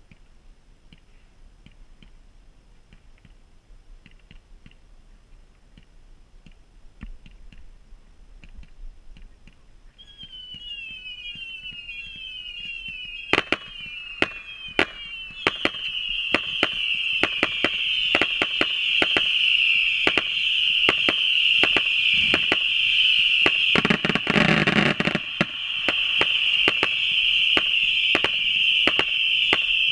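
Fireworks: at first only faint scattered crackles. About a third of the way in comes a string of short falling whistles, and then ground-launched fireworks fire rapid sharp reports over a continuous high whistle, with one louder rush of noise about three quarters through.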